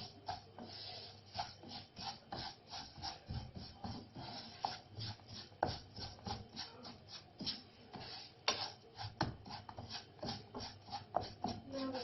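A spoon stirring flaxseeds in hot olive oil in a pan, with repeated short scraping strokes against the pan, a few a second and unevenly spaced.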